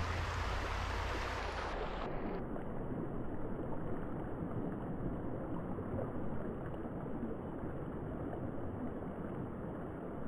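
Steady rush of a flowing mountain stream. About two seconds in, a low rumble and the high hiss drop out at once, leaving a duller rush of water.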